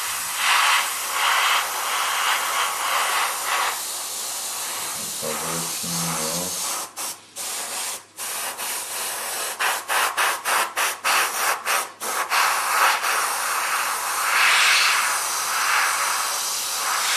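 Airbrush spraying paint with a steady hiss of compressed air, broken by a run of brief stops about halfway through as the spray is cut and restarted in short spurts.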